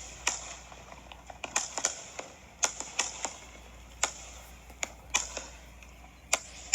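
Jet firework going off in irregular sharp cracks, about a dozen, several trailed by a short hiss.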